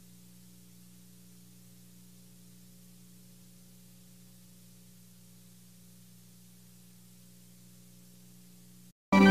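Faint steady electrical hum with light hiss in the gap between two songs. It cuts to dead silence just before the end, and the next song's music starts abruptly at the very end.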